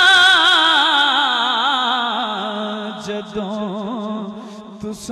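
A man's voice chanting Punjabi Sufi verse. He holds one long note with a wide vibrato that slides slowly down in pitch and fades, and a new note begins right at the end.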